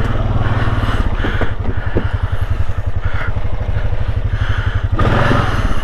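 Small off-road vehicle engine running at a low, even pulse, with a brief rise in throttle about five seconds in.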